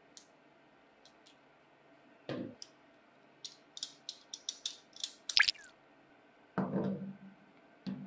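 Metal tools working in a brass padlock's keyhole: a few soft clicks, then a quick run of sharp metallic clicks ending in a louder scrape about halfway through, with dull handling thuds before and after.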